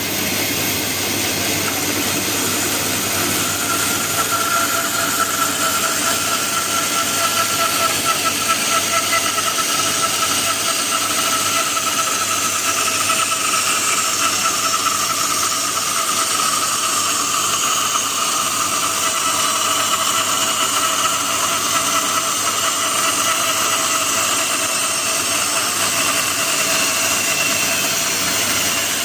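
Mini bandsaw running and cutting wood to shape a curved table leg: a steady whine over a constant hiss, its pitch sagging slightly partway through.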